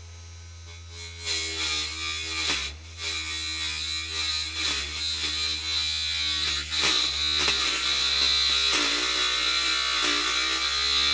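Small electric motor of a homemade table saw spinning a slitted tin-can-bottom blade against a piece of wire, a high whine with grinding. Its pitch wavers and dips as the blade bogs on the wire while nibbling through it. It starts about a second in and cuts off abruptly at the very end.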